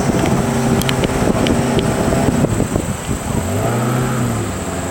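15-horsepower outboard motor on a river longboat running steadily, with wind on the microphone; the engine speed swells up and eases back down near the end.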